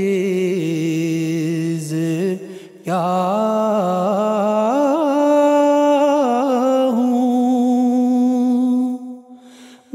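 A man's voice singing an Urdu nazm in long, ornamented held notes, with a short break about three seconds in and a pause near the end.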